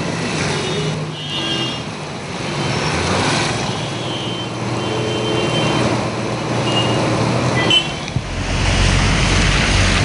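Road traffic driving slowly through a flooded street: vehicle engines running under the rushing wash of tyres pushing through standing water, with a few brief high tones. The wash grows fuller and louder about eight seconds in.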